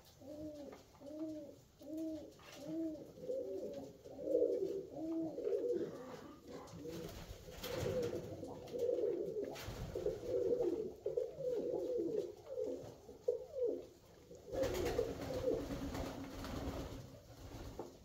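Alföldi-Körösi tumbler pigeons cooing in a small loft. At first a single bird gives a steady run of coos, about one every two-thirds of a second. In the second half several birds coo over one another, broken by a few short bursts of rustling noise.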